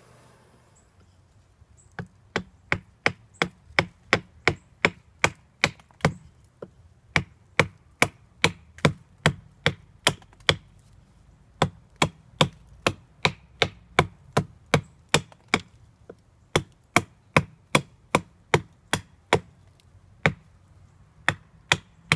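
Forged bushcraft axe, a steel hatchet head set through a wooden club handle, chopping into a stick braced on a stump. Quick sharp chops, about three a second, start about two seconds in and come in runs broken by brief pauses.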